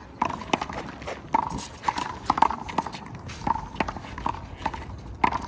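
Rubber handball rally: a string of sharp, irregular smacks as the ball is struck by hand, hits the wall and bounces on the court.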